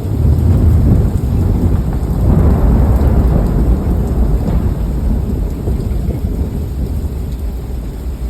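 Loud thunder over heavy rain. The rumble starts suddenly, swells again about two and a half seconds in, and slowly fades.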